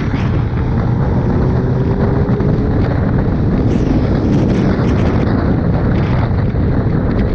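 Heavy, steady wind buffeting on the microphone of a Suzuki Hayabusa motorcycle at riding speed, with the bike's engine faintly underneath.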